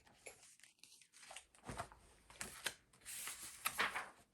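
Faint paper rustling and sliding: a picture book's page being handled and turned, with a few short strokes and a longer rustle near the end.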